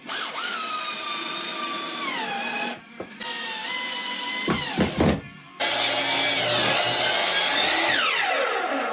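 Power drill running in three bursts: the motor whine holds steady, then sags in pitch as it loads up, and near the end it winds down.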